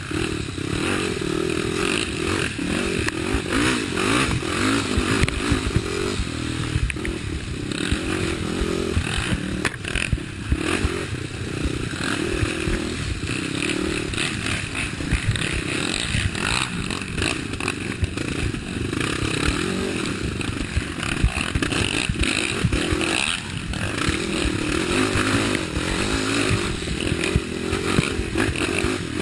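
Race quad (ATV) engine running hard, its pitch rising and falling as the throttle is worked, heard from the rider's helmet. Knocks and rattles from the machine bouncing over rough, rooty ground run through it.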